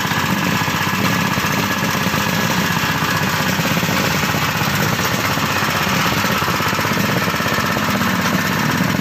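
Small engine driving a sugarcane juice press, running steadily with a fast, even chugging pulse.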